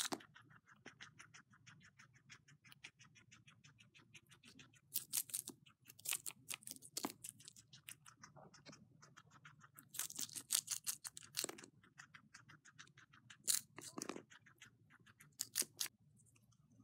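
Guinea pig chewing lettuce: fast, even crunching, several bites a second, with louder bursts of crunching now and then.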